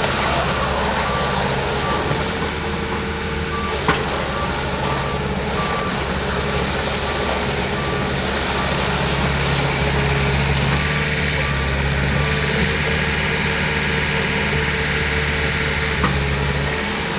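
Terex TC75 compact excavator's diesel engine running steadily, with its travel alarm beeping repeatedly for the first half and then stopping, after which the engine grows a little louder. Two single knocks, one about four seconds in and one near the end.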